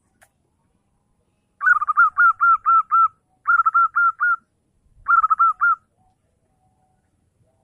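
Zebra dove (perkutut) singing: three phrases of quick, clear repeated coos, the first longest with about seven notes, the next two shorter with about four each.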